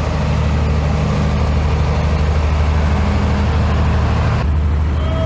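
Street ambience dominated by a steady, low engine drone from a running motor vehicle, with a hiss of street noise above it that drops away abruptly about four seconds in.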